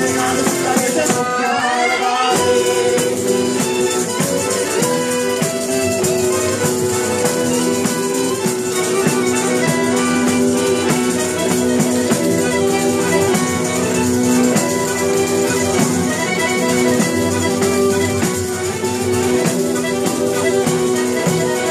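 Live southern Italian folk dance music: tamburello frame drums shaking their jingles in a fast steady rhythm over held accordion chords and guitar.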